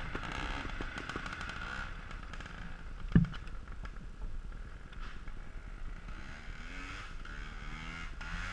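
Trials motorcycle engine running and revving as the bike rides away, growing fainter after the first couple of seconds. A single thump about three seconds in.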